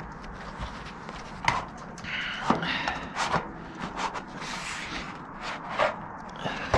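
Gloved hands pressing an overlapping piece of steel verge flashing into place on a metal-tile roof: scattered light clicks and knocks of sheet metal with some rubbing, busiest in the middle.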